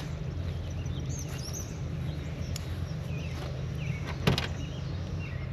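Birds chirping over a steady low hum, with one sharp knock, like a door or lid shutting, about four seconds in.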